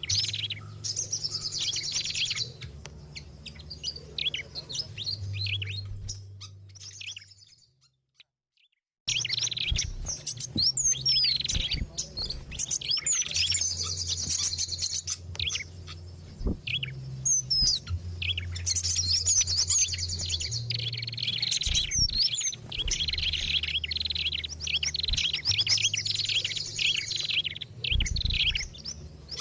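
Bird-lure recording of several small songbirds calling together, dense chirps, trills and quick whistled glides over a low hum. It fades out about seven seconds in, falls silent for over a second, and starts again densely about nine seconds in.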